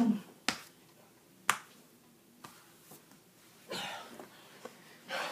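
Sharp slaps of a hand on a person's belly through a shirt: two crisp smacks about a second apart, then a few fainter taps and a brief scuffle of cloth.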